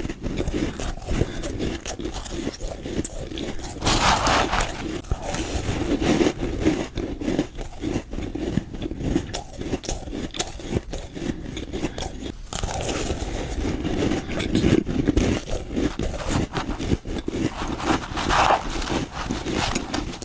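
Soft, powdery ice being chewed close up: a dense, continuous run of crunching and crackling. Sharper, louder bites come about four seconds in, around thirteen seconds, and near the end.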